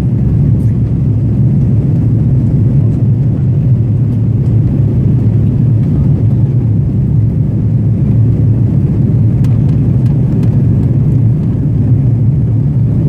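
Steady low rumble of engine and airflow noise inside a jet airliner's cabin in flight.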